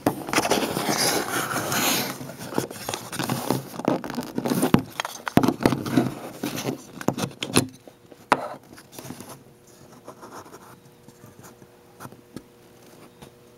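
A plastic Zippo lighter case being handled and opened: scraping and rustling with sharp clicks and knocks for about eight seconds, then only faint handling.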